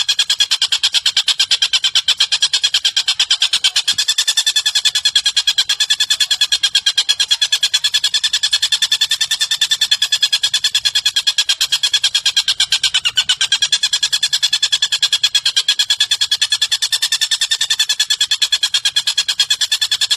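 Recorded bird call playing as a tutor track for teaching a lovebird: a continuous, very fast, even rattling trill at a steady high pitch, unbroken throughout.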